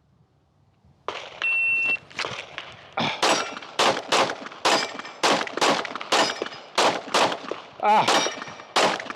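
Shot timer beeps once, then a fast string of 9mm Glock 45 pistol shots, about two or three a second, with a steel plate ringing on some hits.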